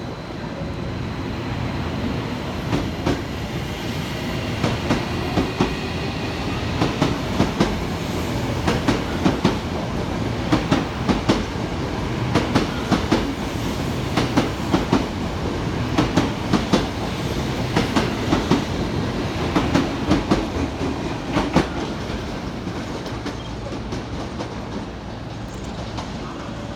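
Tokyo Metro 05 series subway train pulling out of the station, its wheels clacking over rail joints in quick pairs as the cars pass, over a steady rumble. The clacking thins out and fades near the end as the train leaves.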